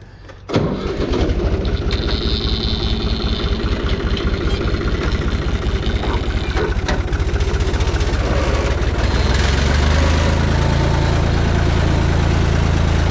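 Tractor engine running, cutting in suddenly about half a second in. From about nine seconds in it gets louder, with a deeper steady tone, as the front loader is worked into a manure pile.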